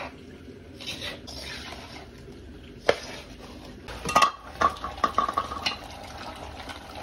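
A metal spoon scraping and stirring flour and hot water in a steel bowl. About three seconds in there is a single sharp knock, then a quick run of clattering metal knocks as pots and utensils are handled.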